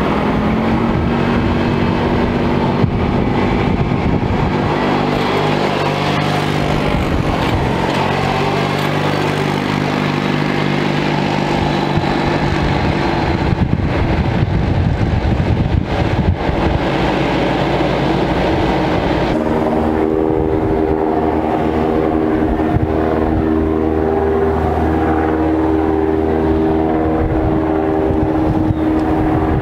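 Vehicle engines running steadily: red Kubota utility vehicles and a Ford F-250 pickup at idle and moving slowly. The steady engine tones change in pitch and make-up about two-thirds of the way through.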